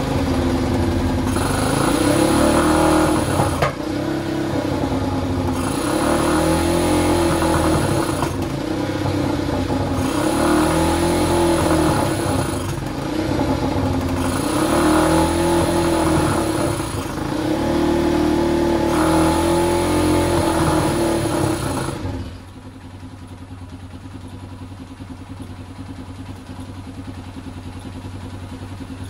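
Sazgar auto rickshaw's air-cooled engine running after winter storage, its first start in a long while, revved by hand about five times in slow rises and falls. About 22 s in it drops to a much quieter steady idle.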